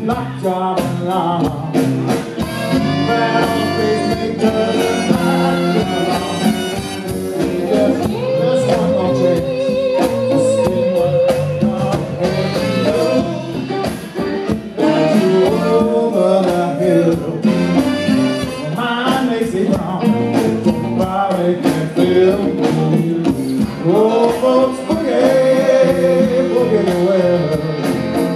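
Live rock band playing a boogie: electric guitars, keyboards, drums and a horn section, with male singing over it. About a third of the way in, a single note is held with vibrato for several seconds.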